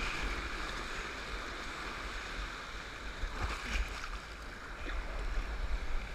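Shallow surf and whitewater rushing and fizzing around a camera mounted on the nose of a bodyboard, with a steady low rumble and a few small splashes about halfway through.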